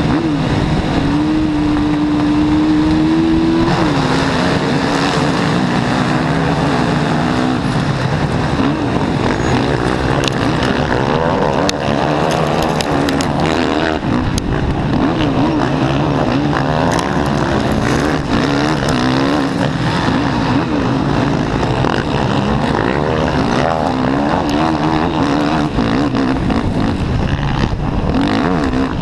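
Racing quad's engine held at one steady note for the first few seconds, then dropping at about four seconds in and running hard, its revs rising and falling over and over as it races.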